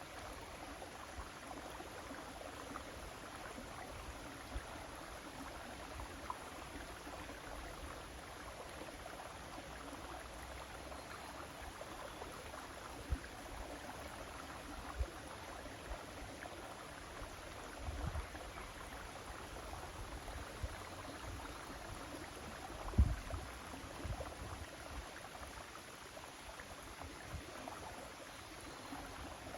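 River water flowing steadily, a constant rushing hiss, broken by a few low thumps, the loudest about three quarters of the way through.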